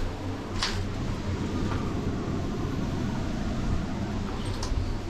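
Steady low rumbling background noise with no clear source, and a brief high squeak about half a second in.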